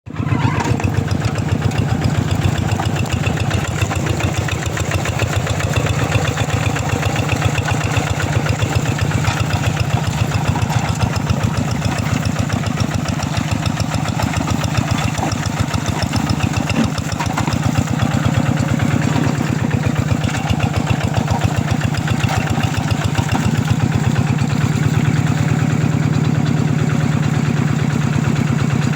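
Two-wheel hand tractor's single-cylinder diesel engine running steadily with a fast, even chugging beat, growing a little stronger in the second half.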